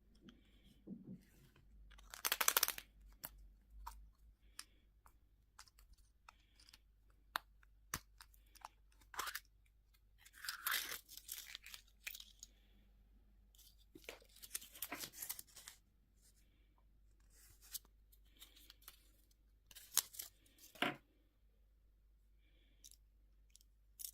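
Candy packaging being torn open and crinkled by hand in several short bursts, with scattered sharp clicks and taps between them.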